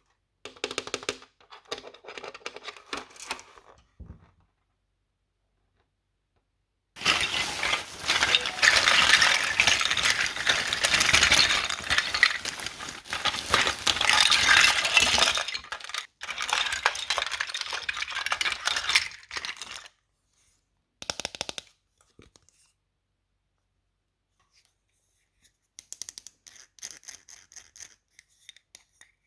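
Toy packaging and small plastic playset parts being handled. Light clicks and taps come first. About seven seconds in, a long stretch of loud, dense crackling and rustling starts, with a shorter stretch after it, and only scattered faint clicks near the end.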